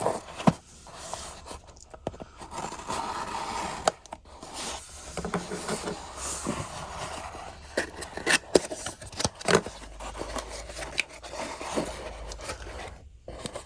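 Hands unpacking a magnetic camera mount kit: packaging scraping and rustling, with many irregular sharp clicks and taps as parts are handled.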